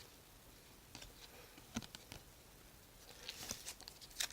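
Faint ticks and soft rustles of baseball trading cards being flipped through by hand, with the rustling growing near the end.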